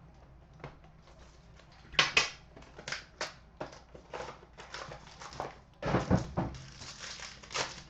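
Packaging being torn open and handled: a run of short crinkles, clicks and rustles of wrapping and card stock, with a louder rustle about six seconds in.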